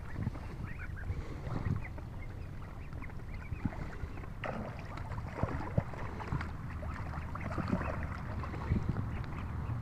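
Month-old Embden goslings and Welsh Harlequin ducklings paddling and splashing in pond water, with a scatter of short, high peeping calls from the flock.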